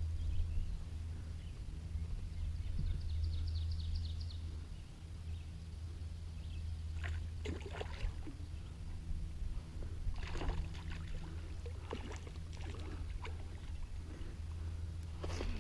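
A hooked bass splashing and thrashing at the water's surface several times, in sharp bursts, over a steady low hum from the boat.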